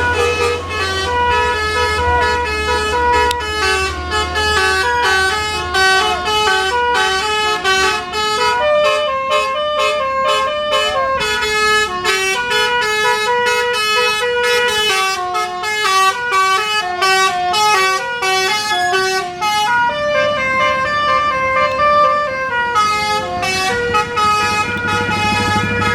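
Basuri 'telolet' multi-tone bus horn playing a long melody of quick, stepped notes, with a low engine rumble under the first few seconds.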